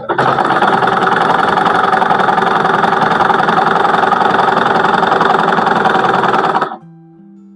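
Electric sewing machine running steadily at speed while stitching a seam, cutting off suddenly near the end.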